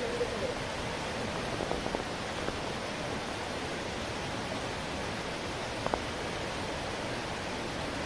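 Steady rush of waterfall stream water pouring over rocks.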